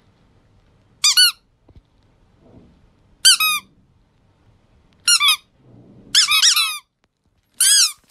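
Squeaky plush chick toy squeaking in short high squeaks, about five bursts spread out, some doubled or tripled, each rising then falling in pitch. Faint rustling between the squeaks.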